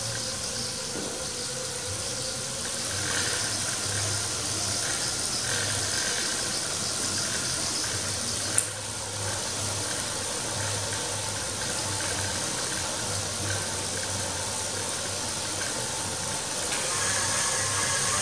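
Pedal-powered bicycle on a trainer stand driving a generator: a steady whirring with a low hum that pulses about once a second with the pedal strokes. A single sharp click about eight and a half seconds in.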